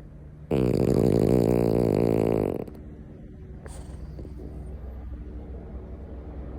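French bulldog snoring loudly: one long snore of about two seconds, starting about half a second in.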